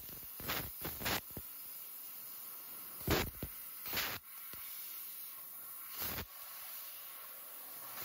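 CNC fiber laser cutting sheet steel: a steady hiss of assist gas, broken by about six short, sharp bursts of hissing noise at irregular intervals as the beam fires and cuts, throwing sparks.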